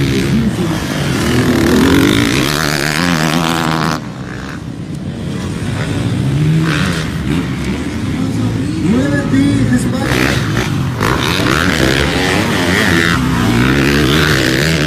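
Motocross dirt bike engines revving hard, the pitch rising and falling again and again as the riders open and close the throttle. The sound drops off abruptly about four seconds in, then builds back up.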